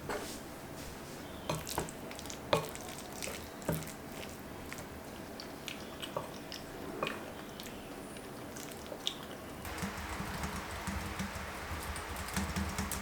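Kitchen handling sounds: scattered light taps and clicks of utensils and dishes. From about ten seconds in they give way to a denser, steady noise.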